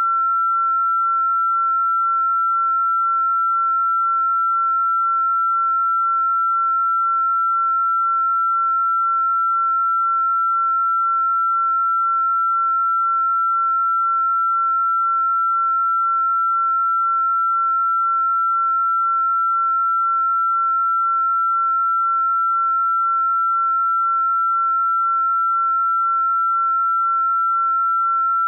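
A single steady electronic pure tone, a sine wave a little above 1,000 Hz, held unchanged throughout. It is the synthesized 'estrogen frequency' played as a sound-therapy tone.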